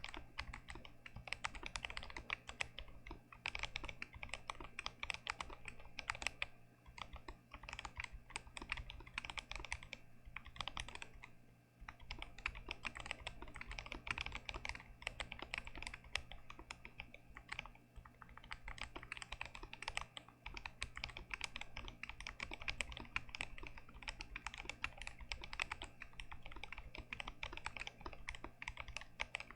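Continuous fast typing on an unmodded GMMK Pro mechanical keyboard with Gazzew Boba U4T tactile switches: a dense stream of keystroke clacks, with a brief pause about twelve seconds in.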